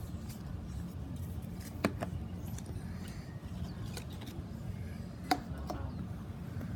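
Slime being handled, with a few sharp clicking pops, the loudest about five seconds in, over a steady low background rumble.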